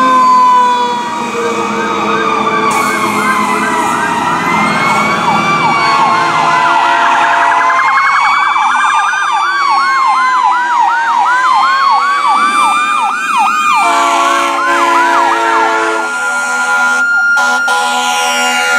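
Sirens of several passing fire engines and emergency vehicles sounding together. A slow rising-and-falling wail overlaps a rapid yelp, and the yelp stops about three seconds before the end, leaving a steady held tone.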